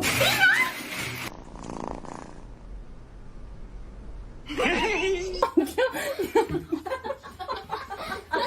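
A person laughing in quick, repeated bursts from about halfway in, after a short pitched call near the start that may be a cat's meow.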